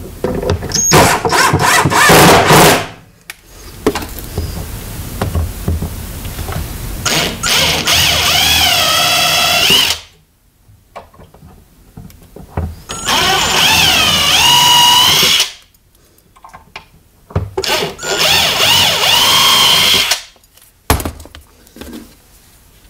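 Power drill driving screws through a piano hinge into a wooden cabinet, in four runs of a few seconds each with short pauses between. The motor's whine dips and recovers in pitch as each screw bites and seats.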